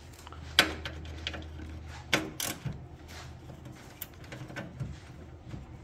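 Metal hand tools, a ratchet with a socket extension, clinking and knocking against a car's radiator support bracket: a few separate sharp clicks, the loudest about half a second in, over a steady low hum.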